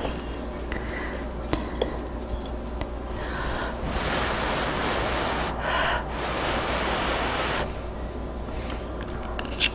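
A person blowing on a hot forkful of baked pasta to cool it: two long breathy blows with a short pause between, after a few light clicks of the fork against the dish.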